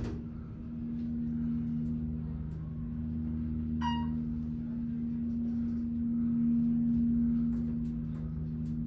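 Otis hydraulic elevator running with the car in motion: a steady low hum from the drive, with a single bell-like chime about four seconds in that rings and fades.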